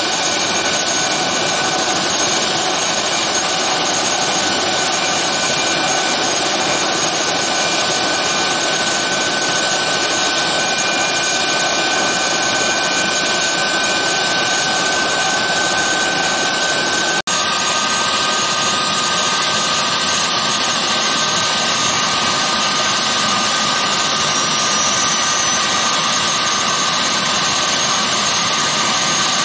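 Eurocopter AS365 N2 Dauphin helicopter running on the ground, its twin Turbomeca Arriel turboshaft engines giving a steady high turbine whine over the rush of the turning main rotor. A brief break a little past halfway, after which the whine sits at a lower pitch.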